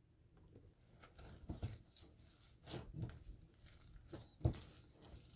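A hand squeezing and mixing whole-wheat flour and water into a shaggy dough in a glass bowl: faint, irregular rustling and squishing strokes, with a few sharper ones. The loudest comes about four and a half seconds in.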